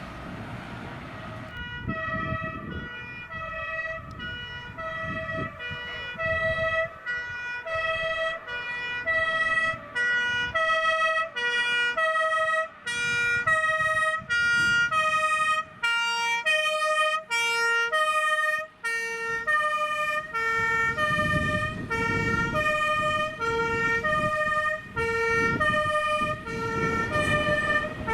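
Two-tone fire engine siren (German Martinshorn) switching steadily back and forth between a high and a low pitch. It starts about a second and a half in and grows louder, over the rumble of the truck's engine and tyres, which gets stronger in the second half.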